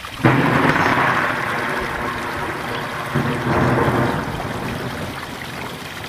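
A sudden loud clap of thunder just after the start, rumbling on and fading away over the next few seconds.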